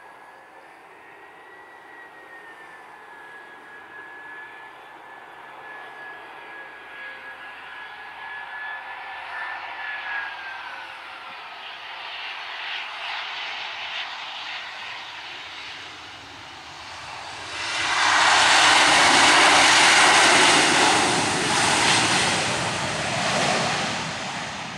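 Airbus A319 jet engines on approach and landing: a steady engine whine that falls in pitch about ten seconds in as the airliner passes. Then, about seventeen seconds in, a sudden loud jet roar of reverse thrust on the landing roll, which eases off near the end.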